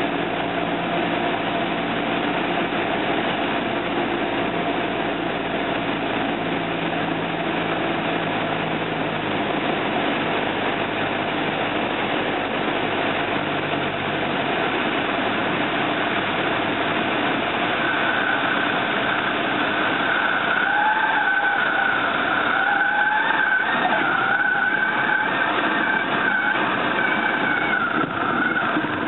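Cessna 172 Skyhawk's engine and propeller at low power with rushing air, heard from inside the cockpit during the landing; the engine's low hum fades about halfway through. For the last third the stall warning horn sounds with a wavering high wail, the sign of the plane slowing toward the stall in the flare just before touchdown.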